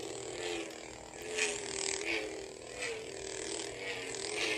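Darth Vader Force FX Black Series lightsaber humming from its built-in speaker, with several brief swelling swing sounds as the blade is waved about.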